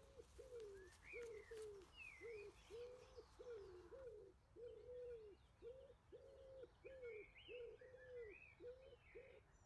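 Faint birdsong: a pigeon cooing in a steady run of short low notes, about two a second, with small birds chirping now and then at a higher pitch.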